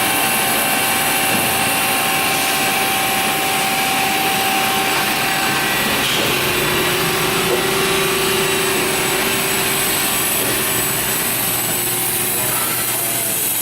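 Cincinnati EC380 grinder running through a test-grind cycle, a steady machine hum with a strong high hiss. About halfway through, a new steady tone comes in as the cycle goes on.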